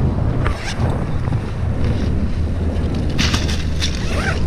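Wind buffeting the microphone as a steady low rumble, with a few short clicks and knocks about a second in and again past the three-second mark.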